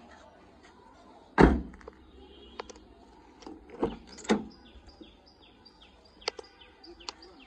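A Nissan X-Trail's door thudding shut with one heavy thunk about a second and a half in, followed by two smaller knocks around four seconds in and light handling clicks. Birds chirp in quick falling notes near the end.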